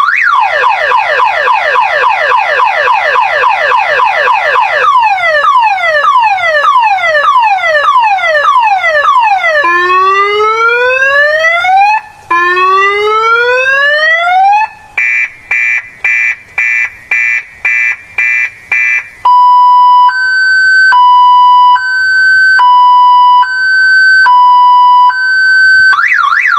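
Loud electronic car alarm siren cycling through its tone patterns. It starts with a fast warble, then slower falling sweeps, long rising whoops, rapid beeping at about two beeps a second, and a slow two-tone high-low alternation, before the fast warble starts again near the end.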